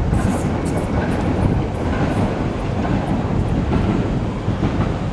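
Six-coach Class 465/466 Networker electric multiple unit running into the platform, a steady low rumble of wheels and motors as it approaches.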